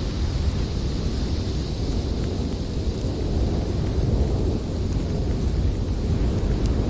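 Strong snowstorm wind blowing without a break: a deep, steady rumble with a fainter hiss above it.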